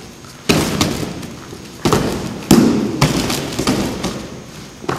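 Expandable baton strikes landing on a padded training suit: three loud, sharp hits within about two seconds, then a few lighter ones. Each hit echoes in a large, bare hall.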